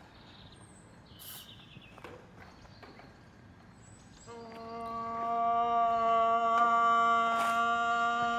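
A few soft clicks, then about four seconds in a steady, flat-pitched hummed vocal note swells up and is held: a sustained voice layer in a loop-station beatbox build, heard through the camera microphone.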